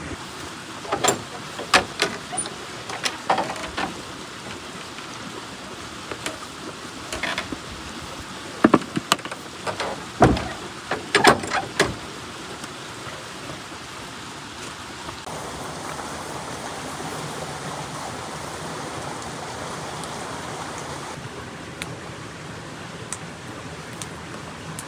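Steady rushing noise, like running water, with a scattered run of sharp clicks and knocks through the first half.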